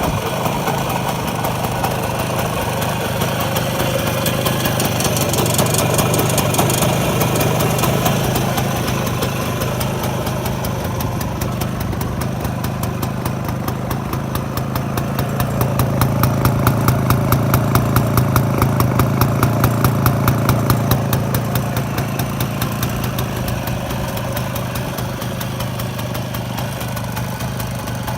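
A 1957 Jawa 356's 175 cc single-cylinder two-stroke twin-port engine running at idle. The revs pick up and the engine gets louder for a few seconds twice, then settle back to idle.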